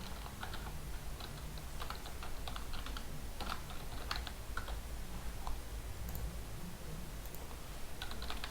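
Typing on a computer keyboard: irregular, quick keystrokes, over a steady low hum.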